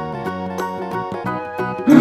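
Light children's background music with plucked-string notes. A loud animal roar breaks in at the very end.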